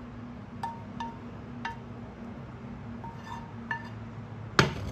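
Wooden spatula knocking and scraping against a frying pan as stir-fried noodles are tipped out: several light knocks about a second apart, each leaving a brief ring from the pan. Near the end comes a loud clunk as the pan is set down on the glass hob, over a low steady hum.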